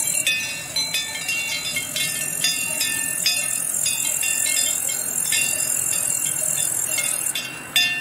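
Cowbells on grazing cattle clanking at irregular moments, each strike ringing briefly in several high tones that overlap.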